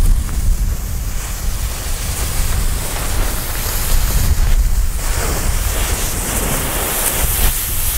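Coloured smoke fireworks burning with a steady hiss, under heavy wind rumble on the microphone.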